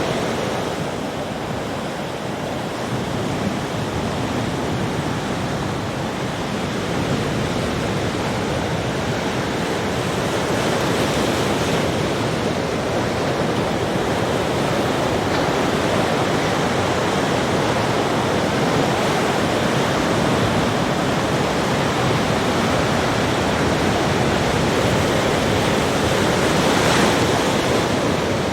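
Sea waves breaking and washing on a beach, a steady surf noise that swells and eases gently.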